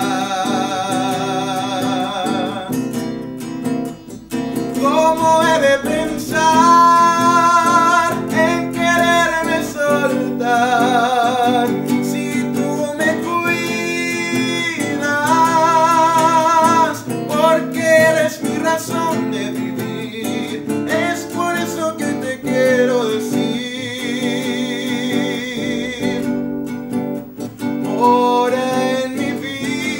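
A man singing a slow Spanish-language Christian song to his own nylon-string classical guitar, with a wavering vibrato on the long held notes.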